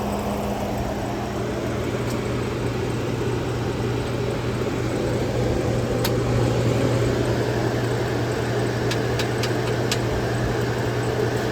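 1959 Welbilt Wall-Slim heat pump running in cooling mode with its case and front panel off: a steady compressor hum under the rush of its fans. A few faint ticks come about six and nine seconds in.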